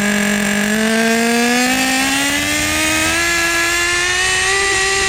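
Team Associated Nitro TC3's small .12 nitro engine held at full throttle, its high-pitched note climbing steadily as it winds up toward the two-speed transmission's shift point.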